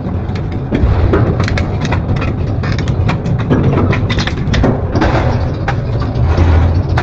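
Double-shaft metal shredder tearing up metal, a heavy low rumble broken by frequent sharp cracks and bangs of metal breaking.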